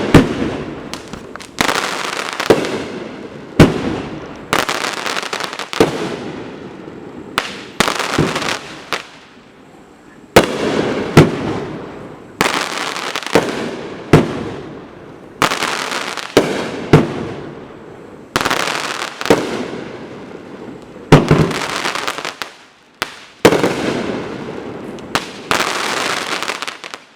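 Consumer aerial fireworks from the 1.4G Mammoth Aerial Assortment going off in a steady run: more than a dozen sharp bangs, about one every second or two, each trailed by a crackle that fades out.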